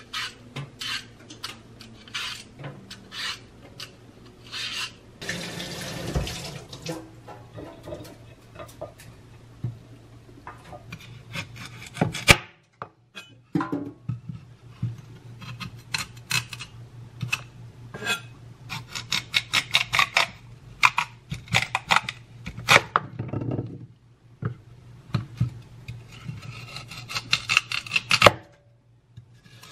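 Vegetable peeler scraping the skin off a lotus root in runs of quick rasping strokes. The kitchen tap runs briefly early on, and there is a single knock about twelve seconds in, over a low steady hum.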